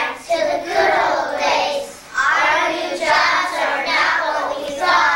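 A group of young children singing together, with a short break between phrases about two seconds in.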